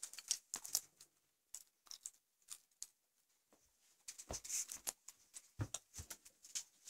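Scattered light clicks and rustles of objects and the camera being handled, with a few soft thumps about four and a half to six seconds in.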